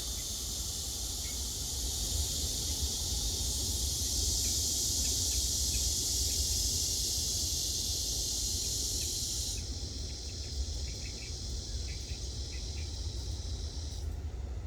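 A steady, high-pitched chorus of insects shrilling, which partly drops out about ten seconds in and stops altogether near the end, over a low steady rumble.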